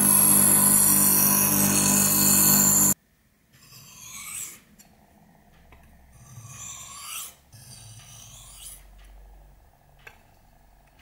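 Bench grinder wheel running with a knife blade pressed against it, grinding steadily, then cutting off abruptly about three seconds in. After that come three slow swishing strokes of the blade drawn across a whetstone.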